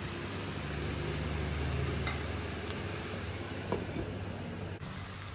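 Mixed vegetables (broccoli, Brussels sprouts, carrot, zucchini, onion) sizzling steadily in a hot wok as they steam-fry, with a steady low hum underneath.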